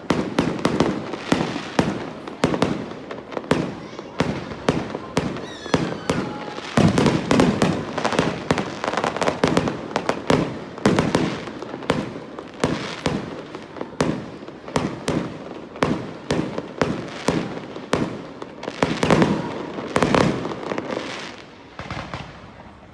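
Fireworks display: a dense, rapid run of overlapping bangs, several a second, that dies away near the end.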